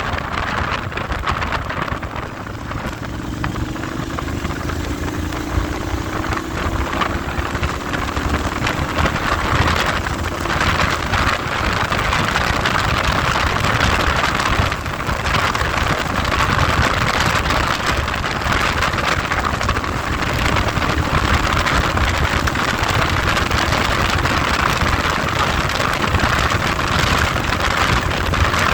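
Heavy wind noise on the microphone of a moving vehicle, a steady rushing hiss over the low rumble of the engine and road. A faint engine note rises slightly a few seconds in.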